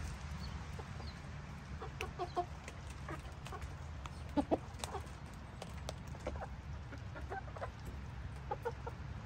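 Asil chickens clucking: many short, scattered clucks from several birds over a steady low background rumble.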